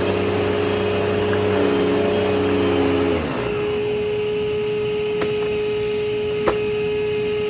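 Kenmore Whisper Tone canister vacuum running while picking up shredded paper. About three seconds in, its low hum drops away and leaves a steady whine. Two sharp ticks follow later.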